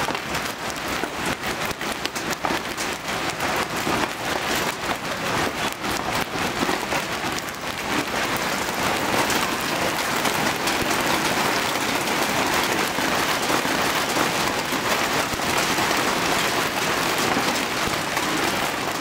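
Large hail, some stones tennis-ball size, falling with heavy rain: a dense clatter of hard impacts over the hiss of the downpour. It grows a little louder and more even about eight seconds in.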